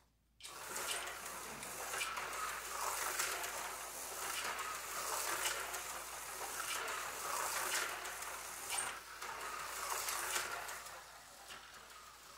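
HO-scale Aurora slot car running around a tiny oval track under power: its small electric motor whirring and the car rattling in the slot. The sound starts about half a second in, swells and dips repeatedly, and dies down near the end.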